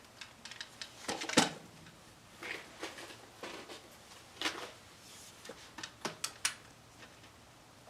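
Metallic clicks and clacks of an AR-15-style rifle and its magazine being handled: a scattering of separate sharp clicks, the loudest about one and a half seconds in.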